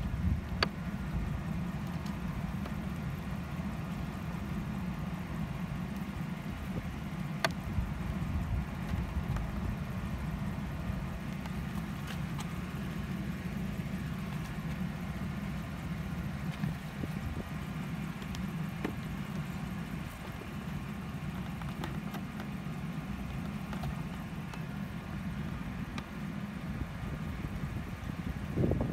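A vehicle engine idling with a steady low hum, with a few faint clicks scattered through it.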